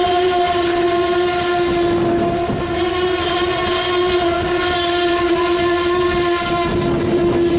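Amtrak passenger cars rolling past on the rails, with a steady pitched tone that holds at one pitch under the rolling noise.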